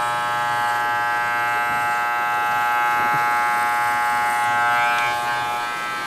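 Corded electric hair clippers running with a steady buzz.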